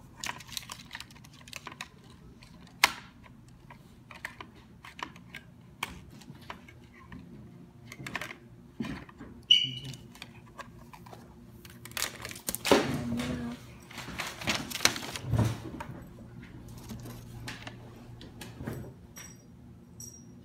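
Hands handling a toy helicopter's box, plastic parts and paper instruction sheet: scattered clicks, taps and rustles, busiest about two-thirds of the way through.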